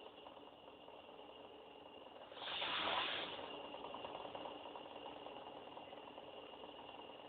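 A sleeping baby snoring: one louder, breathy snore about two and a half seconds in, lasting about a second, over a faint steady high whine.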